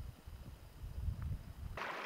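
Low, uneven wind rumble on the microphone. Near the end it cuts off abruptly into the steady rushing and splashing of a small mountain stream over rocks.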